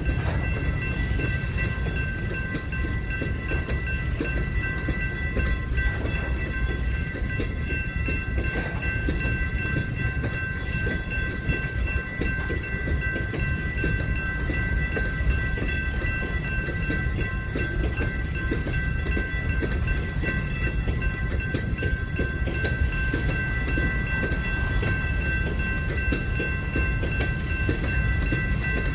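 A train rolling past: a steady low rumble of wheels on rails with a faint clatter, and several high steady ringing tones held throughout.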